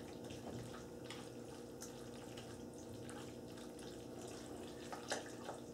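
Faint wet squelching of cooked pasta being stirred into thick béchamel sauce with a spoon in a glass bowl, with a few soft clicks and a slightly louder stir about five seconds in, over a steady low hum.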